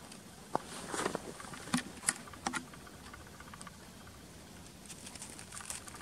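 Footsteps crunching in snow as a person and a dog walk, with a few sharper crunches in the first couple of seconds and a fainter quick patter of steps near the end.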